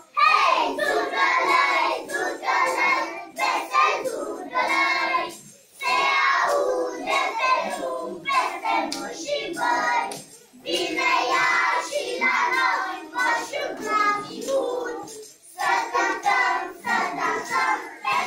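Young children singing a song, in phrases broken by short pauses about every five seconds.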